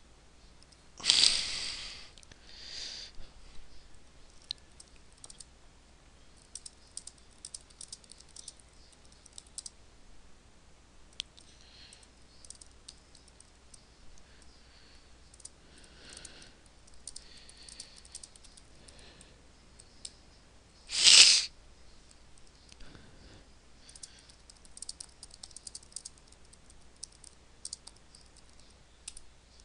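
Computer keyboard typing in scattered clusters of light key clicks. Two brief, louder hissing sounds come about a second in and about 21 seconds in, the second being the loudest.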